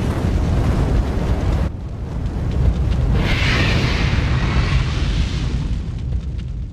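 Deep, continuous rumbling of a fire-and-explosion intro sound effect. A hissing surge rises about three seconds in, and the sound fades away near the end.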